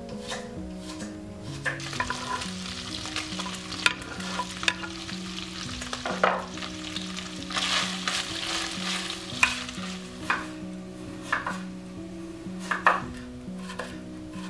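Meat and sliced onion sizzling as they fry in an enamelled pot, stirred with a wooden spoon that knocks and scrapes against the pot. A kitchen knife chops on a wooden board near the start and again near the end. Soft background music with a slow low melody plays underneath.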